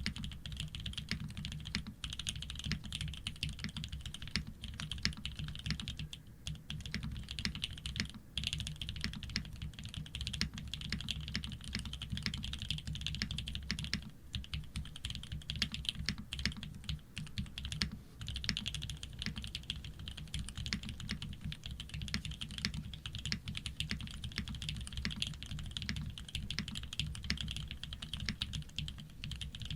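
Continuous fast typing on a Shark60 custom mechanical keyboard with Fierce Girl switches, PBT keycaps and an aluminium plate with no case foam: a dense, steady stream of keystroke clacks.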